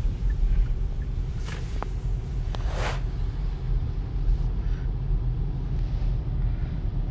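Steady low rumble of a car's engine and road noise, heard from inside the cabin while driving, with a brief hiss just under three seconds in.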